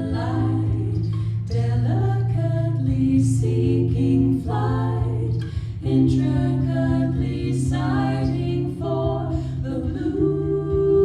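A woman singing a slow folk song in phrases, over long held low notes that change pitch every few seconds.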